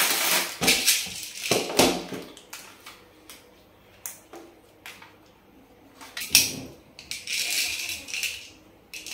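Plastic toy rifle and its parts being handled on a table. Plastic bags of 6mm BBs crinkle and rattle at the start, followed by scattered clicks and knocks of plastic parts. The sharpest knock comes about six seconds in, and there is a rustle shortly after.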